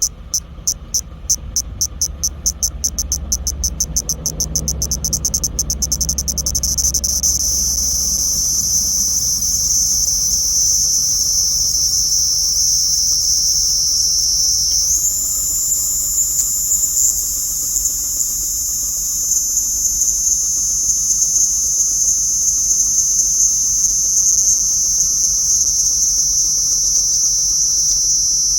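Cicadas singing, niinii-zemi and Ezo-zemi: a call that starts as rapid pulses, speeds up and merges into a continuous high-pitched buzz. About halfway through, a second, higher buzz joins in. A low rumble lies underneath for the first few seconds.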